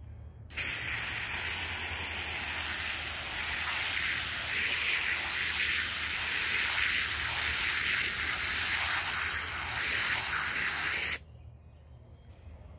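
Garden hose spray nozzle jetting water onto an upholstered cushion: a steady hiss that starts about half a second in and cuts off sharply near the end as the trigger is released.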